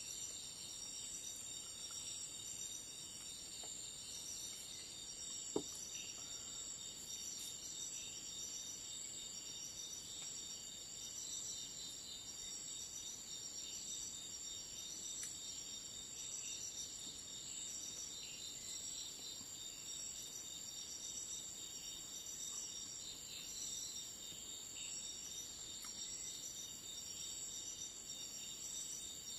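Steady night-time insect chorus: several high-pitched trilling calls overlap without pause. A single soft click comes about five and a half seconds in.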